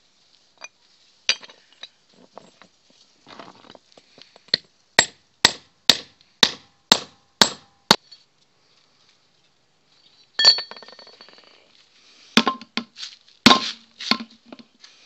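Hammer blows on steel. First a regular run of about seven sharp, ringing strikes, roughly two a second, blunting the corner of a steel angle on a rail-piece anvil. Then, after a pause, a single loud ringing blow, followed near the end by heavier, irregular sledgehammer blows on a bent stamped steel wheel rim to knock it straight.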